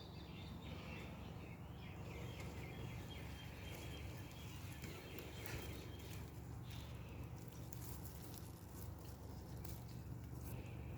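Wild cockatoos screeching in the distance: one long harsh call over the first four seconds or so, then shorter calls about seven seconds in and near the end. Light clicks and rustles of tomato plants being handled as cherry tomatoes are picked.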